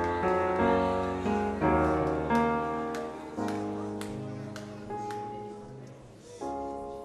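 Roland Fantom X8 keyboard playing slow chords, each struck and left to ring out and fade. The chords come further apart and grow softer, with a fresh chord near the end.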